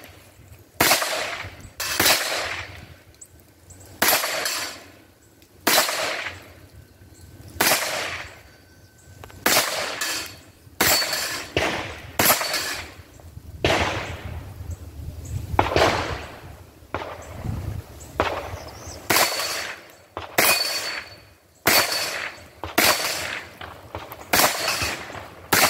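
9mm AR-15 short-barreled rifle fired semi-automatically: a long string of single shots, roughly one to two seconds apart, each with a short echo.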